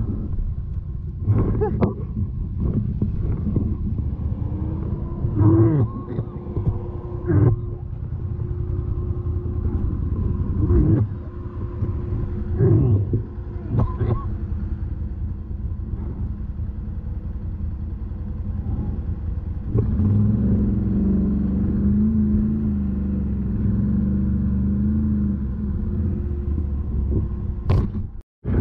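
Can-Am Renegade 1000 XMR ATV engine running under throttle through mud, a continuous rumble broken by about half a dozen sharp knocks and jolts in the first half. About twenty seconds in, the engine note climbs and holds higher. The sound cuts out briefly near the end.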